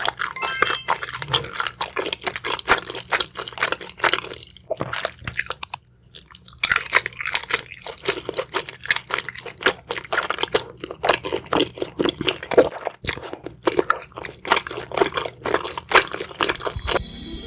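Close-miked chewing and crunching of crunchy seafood: rapid crisp crackles, pausing briefly about five seconds in, then carrying on.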